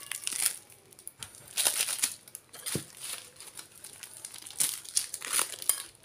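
Brown packing tape and paper wrapping being peeled and torn off a parcel, crinkling in irregular rustles and rips.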